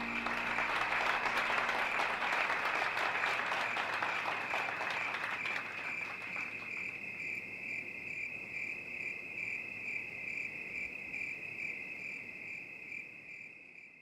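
Crickets chirping in a steady pulsing trill, with applause from many hands clapping over the first half that fades out about six seconds in. The crickets then fade away near the end.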